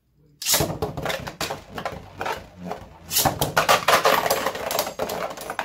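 Beyblade Burst spinning tops launched by ripcord into a plastic stadium, then clattering and rattling as they spin against the stadium floor and walls, with louder clashes in the middle.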